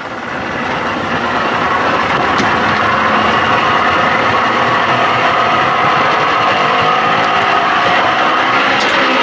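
Outboard motor revved up from idle, getting louder over the first second or two and then held at a steady higher speed, its pitch creeping up slightly. It is run up so the charging system pushes the battery voltage up.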